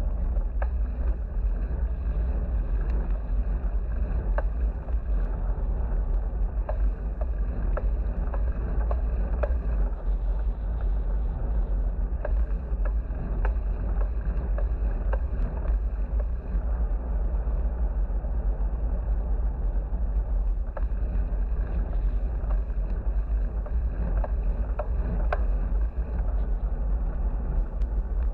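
Steady, deep rumbling wind buffeting on a GoPro microphone while riding a bicycle, with scattered light ticks throughout.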